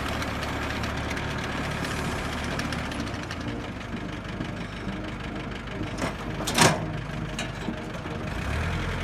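Iseki TA417 tractor's Isuzu four-cylinder diesel engine running steadily, its rotary tiller mounted behind. A brief louder noise comes about six and a half seconds in.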